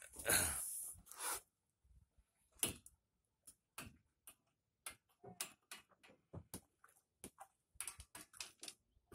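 A short rustling burst in the first second or so, then irregular light clicks and taps, a few a second.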